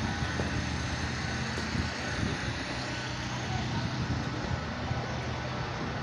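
Gas-engine pressure washer running steadily, a constant low engine hum under an even hiss.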